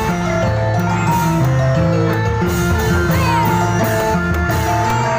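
Music playing loudly and steadily: instruments carry a melody of held notes over a moving bass line.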